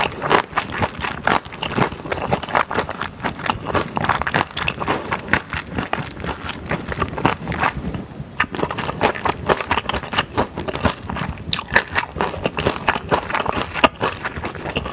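Close-miked chewing of spicy beef-brisket yakisoba with wide glass noodles: dense, irregular wet clicks and smacks of the mouth, with a short lull about eight seconds in.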